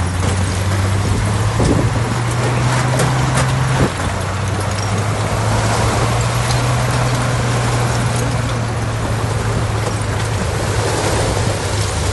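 Heavy earthmoving machine's diesel engine running steadily, with a scraping, grinding noise over it. A few sharp knocks come in the first four seconds, and the engine note steps down slightly about four seconds in.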